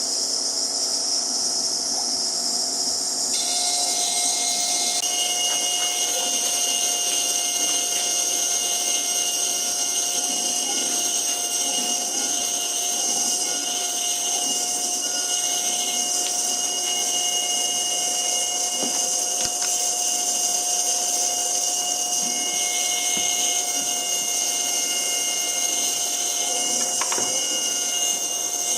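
High-speed CNC spindle running and cutting a small wooden ring insert: a steady high whine holding several fixed tones, with a further tone joining about five seconds in.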